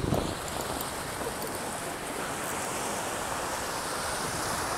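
Sea surf washing and surging over the rocks, a steady rush, with wind on the microphone.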